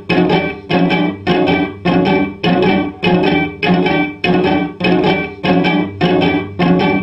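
Amplified cello with its strings plucked in a steady repeating figure, about two notes a second, each note starting sharply and ringing with several tones before dying away.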